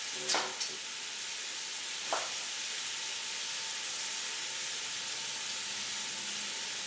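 Meat sizzling steadily as it browns in a hot pot, with three sharp clacks in the first couple of seconds.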